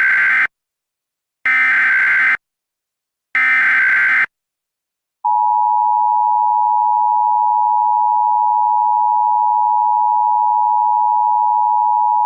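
Emergency Alert System SAME header: three short bursts of digital data screech, about a second each, separated by silent gaps. From about five seconds in, the two-tone EAS attention signal (853 and 960 Hz) sounds steadily.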